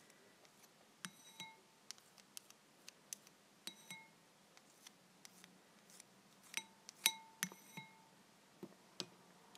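A utensil clinking irregularly against a bowl while slime mixture is stirred. Each clink has a short ring, and the loudest clinks come about seven seconds in.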